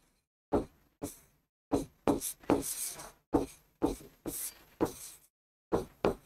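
A pen writing on the screen of an interactive display board: about ten short taps as each stroke lands, two to three a second, with a longer scratching stroke about two and a half seconds in.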